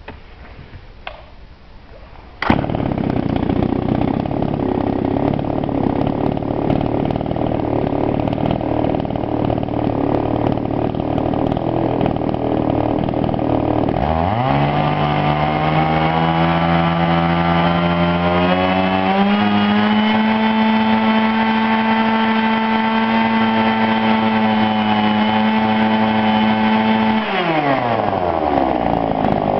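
Tanaka PowerMate PMS-335A two-stroke chainsaw. After a few faint clicks its engine comes in suddenly about two seconds in and idles. About halfway through it is revved up to high speed and held there for over ten seconds, rising once more partway, then drops back to idle near the end.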